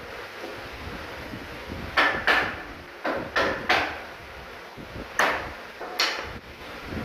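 Sharp knocks on the wooden bed-end frame as its rails and panels are knocked together into their joints: about six knocks, mostly in quick pairs, starting about two seconds in.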